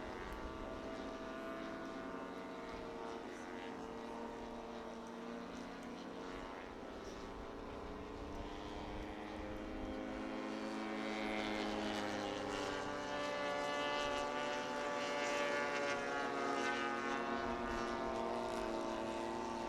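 Engine of the Titan, a radio-controlled aerobatic model aircraft, running in flight, its pitch rising and falling through the manoeuvres and getting louder in the second half.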